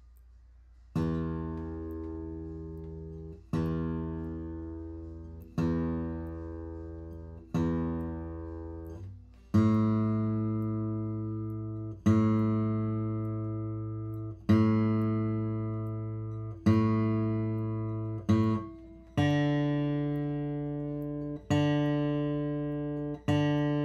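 Acoustic guitar's open strings plucked one at a time with the thumb, each left to ring and fade, about one pluck every two seconds. The low E string sounds four times, then the A string four times with one short extra pluck, then the D string three times: the strings being checked against a tuner.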